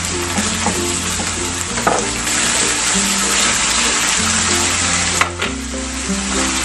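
Pork and pork liver strips sizzling in hot oil in a frying pan, with a steady hiss throughout, under background music.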